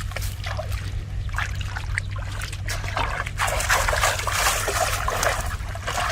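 Shallow water splashing and trickling in irregular bursts, denser for a couple of seconds around the middle, over a steady low rumble.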